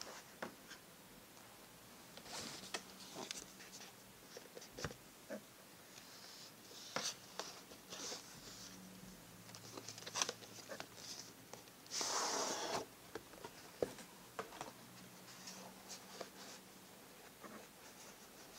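A fountain pen gift box and its packaging being handled on a desk: soft rustles of paper and card, with light taps and clicks. There is one longer sliding rustle about twelve seconds in.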